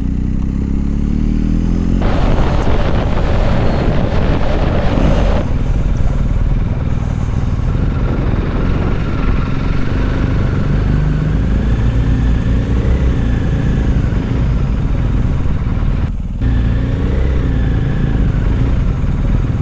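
BMW R1250 GSA's boxer twin engine running under way, heard from the moving bike, its revs rising in the first two seconds. A rush of wind noise runs from about two to five seconds in, and the sound briefly drops out about sixteen seconds in.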